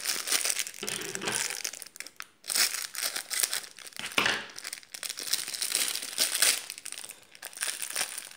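Thin clear plastic bag crinkling in irregular bursts as it is handled and pulled off a metal fidget spinner.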